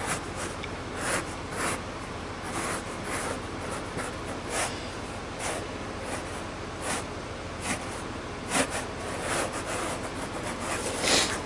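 Marker pen scratching across a cardboard template in a series of short, irregular strokes as a curved line is drawn.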